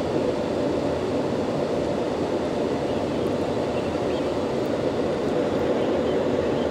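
Steady in-flight cabin noise of a jet airliner, the even rushing of engines and airflow heard from inside the cabin at a window seat by the wing.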